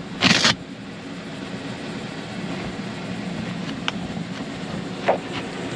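Something being handled and set back in place: a short, loud rustle or scrape right at the start, then a couple of light clicks later, over a steady low hum.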